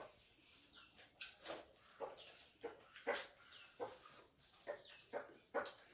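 Faint animal calls repeating about twice a second, each short and falling in pitch.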